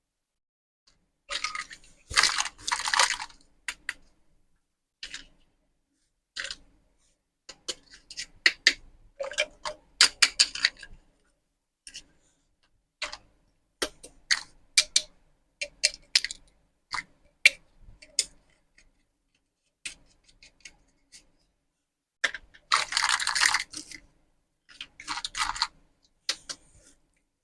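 Small plastic toy pieces being handled: irregular clicks and taps, with longer bursts of rustling or crinkling about two seconds in and again near the end.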